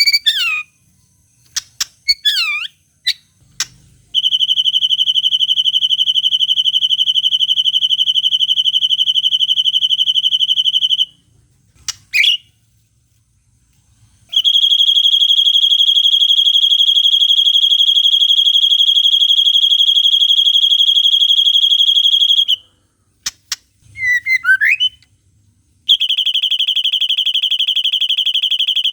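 Bird song from a white-rumped shama masteran: three long, even, buzzy trills of several seconds each, in the long 'cililin' style, separated by short whistled glides and sharp chips.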